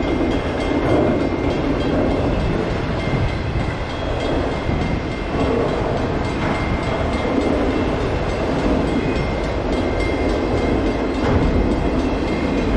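Freight train of multilevel autorack cars rolling past at a steady pace: continuous rumble and clatter of wheels on rail. A thin, steady high tone runs through it.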